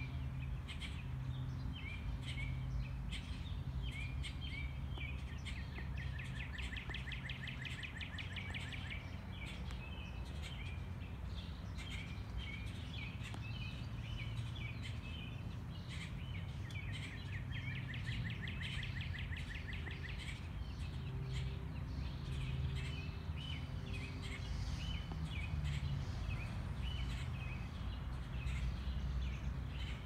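Songbirds chirping and calling in a steady chorus, with two long rapid trills of repeated notes, one about six seconds in and another near the middle, over a steady low outdoor rumble.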